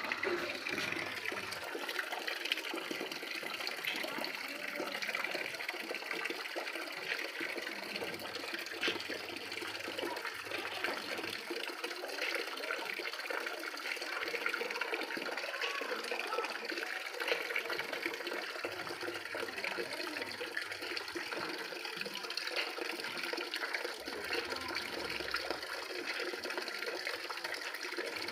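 Water running and splashing steadily into a plastic tub while a water buffalo drinks from it with its muzzle in the water.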